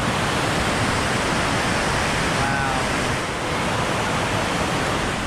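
White water rushing steadily over the rock ledge of a river cascade, close to the microphone.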